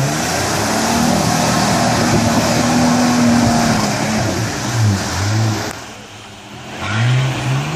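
Nissan Patrol 4WD engine revving hard in a mud pit, the revs rising and falling over and over. It eases off briefly about six seconds in, then revs up again near the end.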